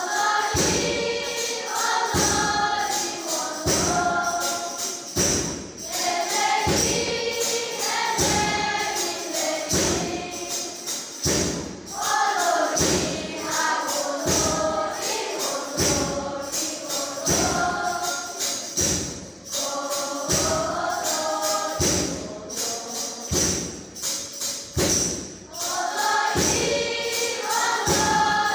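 Children's choir singing a hymn in unison to a steady percussive beat.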